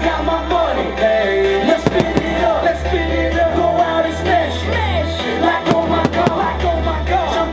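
A song with singing plays steadily, with several sharp firework bangs heard over it.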